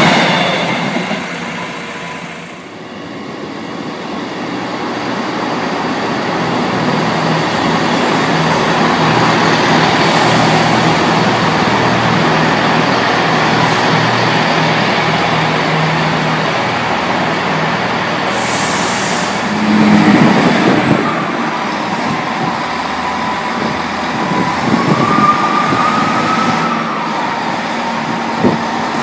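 Northern Class 158 diesel multiple units on the move: diesel engines running under a steady rumble of wheels on rail, with a level crossing alarm tone fading in the first two seconds. There is a brief louder burst about twenty seconds in, and a rising whine near the end as a unit's engines pick up.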